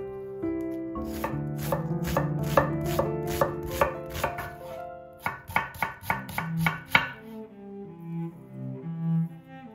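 Chef's knife dicing an onion on a wooden cutting board: quick knocks of the blade through the onion onto the board, about three to four a second, faster for a moment past the middle, then thinning out to a few strokes near the end.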